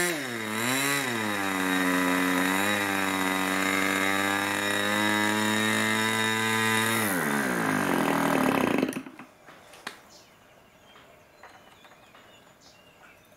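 Irvine 40 MkII two-stroke glow engine running flat out with its propeller. Its speed dips and picks up again in the first second, then holds steady a little lower. About seven seconds in it winds down, and it stops just before nine seconds, leaving only faint clicks.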